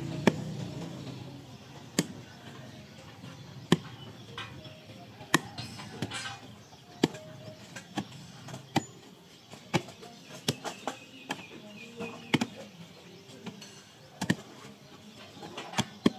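Repeated sharp strikes of a hand digging tool, about one every second and a half at first, then coming faster and less evenly from about ten seconds in.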